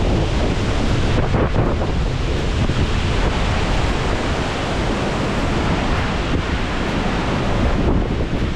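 Strong gusty wind buffeting the microphone, a loud, steady rumbling roar with no let-up.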